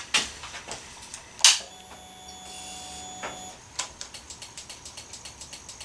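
A couple of sharp clicks and a short steady hum, then the Honda CRF250L's stock flasher relay clicking rapidly, about five times a second. This is hyper flash: the relay flashes too fast because the new LED turn signals are on while the original flasher is still fitted.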